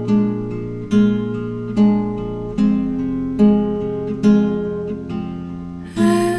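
Instrumental music: guitar chords struck about once every 0.85 seconds, each one ringing and fading before the next. A brighter layer enters near the end.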